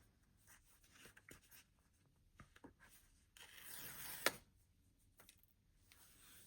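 Quiet hand-handling of a smartphone box and packaging: faint taps and rustles, then a second of rubbing or sliding that ends in one sharp click.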